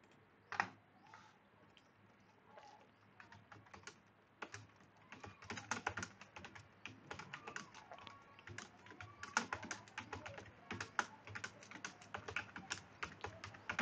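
Typing on a computer keyboard: a few scattered key clicks, then quick, steady typing from about four seconds in.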